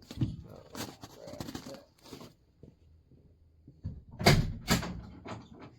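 Knocks and thuds of someone moving about and handling things inside an enclosed trailer, with two louder thuds a little past four seconds in.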